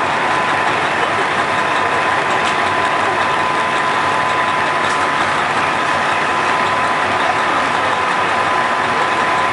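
KiHa 40 diesel railcar idling at a station platform: a steady engine hum carrying a thin, constant high whine.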